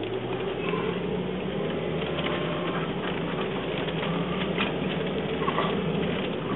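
Car cabin noise while driving: a steady drone from the engine and road, with scattered scrapes and clicks from the phone being handled close to the microphone.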